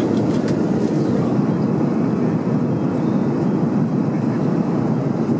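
Steady in-flight cabin noise inside an Airbus A330-300 airliner: the even, low roar of the engines and of air rushing past the fuselage.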